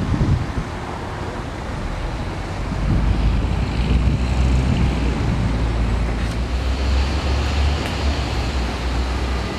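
City street traffic noise, with a deep low rumble of a heavy vehicle setting in about three seconds in and holding.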